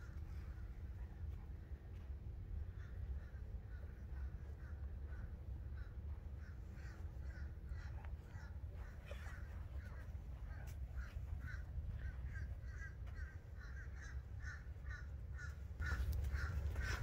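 Birds calling in a long run of short, repeated calls, several a second, growing busier toward the end, over a low steady rumble.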